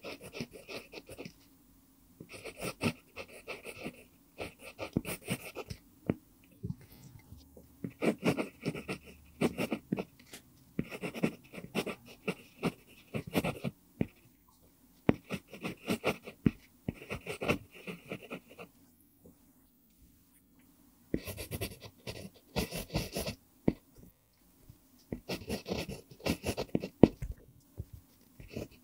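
Pentel PG5 mechanical pencil writing cursive on lined paper: the lead scratching in quick strokes, in bursts word by word with short pauses, and one longer pause about two-thirds through.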